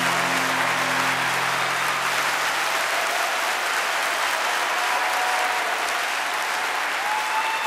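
Audience applause, with the last held chord of a live song fading out under it over the first few seconds.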